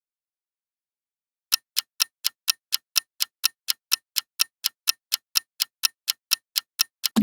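Clock ticking sound effect, evenly spaced ticks about four a second over dead silence, starting about a second and a half in. A short rising tone cuts in at the very end.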